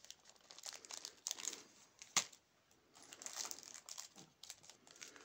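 Small zip-lock plastic bag of metal charms crinkling and rustling as it is handled, with one sharp click a little over two seconds in.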